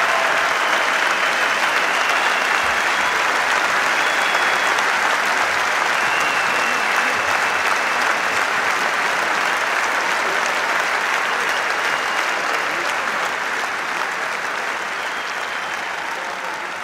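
Large concert audience applauding steadily, the applause slowly dying down toward the end.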